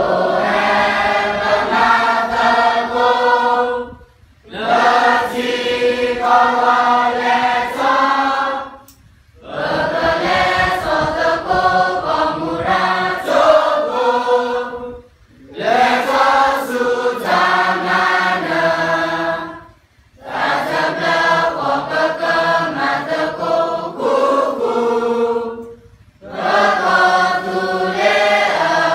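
A large group of students singing together unaccompanied, in phrases of about four seconds, each followed by a short breath pause in which everything goes quiet.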